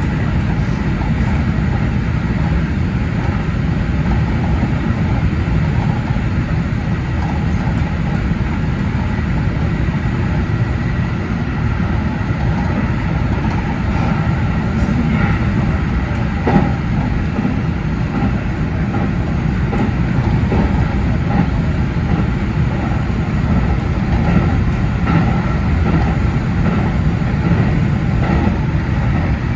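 A 313 series electric multiple unit running at speed, heard from the cab: a steady rumble of wheels on rail with a faint steady whine. There is a single sharper knock about 16 seconds in.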